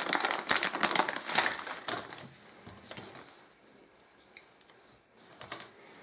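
Clear plastic packaging bag crinkling as it is opened and the tachometer is taken out, loudest over the first two seconds or so, then fading to quieter handling with a few faint clicks near the end.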